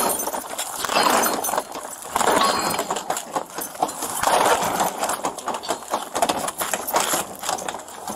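Rustling and knocking of a police officer's uniform and gear against a body-worn camera, with scattered sharp clicks as he shifts and handles his long gun.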